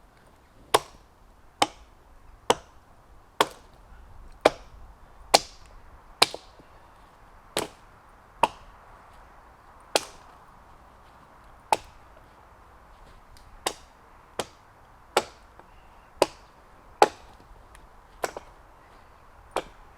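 Hultafors Hunter's Axe chopping into a tree trunk: about eighteen sharp strikes, roughly one a second, with a few longer gaps in the middle.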